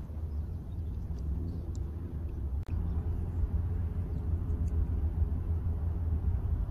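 Wind buffeting the microphone: a gusting low rumble, with a few faint ticks.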